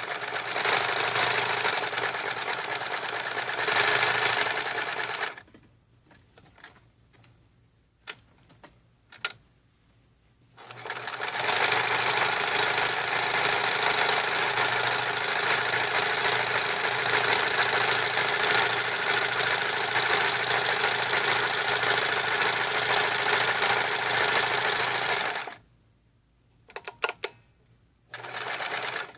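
MORSE Model 5401 stretch stitch sewing machine running at a steady speed and sewing a zigzag stitch, in two runs: about five seconds, then after a pause about fourteen seconds. Between and after the runs come a few short clicks.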